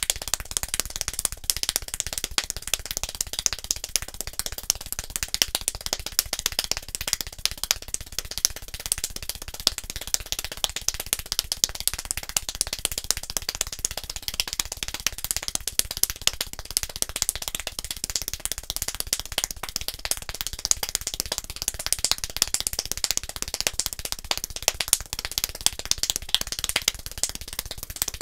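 Extremely fast hand clapping: a continuous, even stream of sharp claps at about sixteen claps a second, with no pauses.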